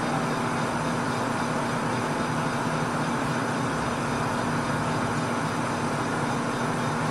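Metal lathe running at a steady speed, its large four-jaw chuck spinning: an even mechanical hum and whir with a few steady whining tones that do not change.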